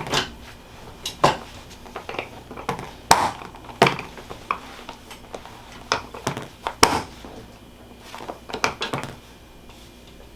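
A dozen or so irregular sharp clicks and pops from a knee joint as the kneecap is shifted back and forth by hand, a kneecap the chiropractor calls a little stuck. They stop after about nine seconds.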